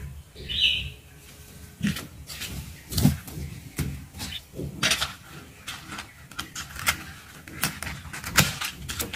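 Clear plastic sticker packets crinkling, with irregular sharp taps as they are handled and set back into a cardboard gift box. There is a brief high-pitched chirp about half a second in.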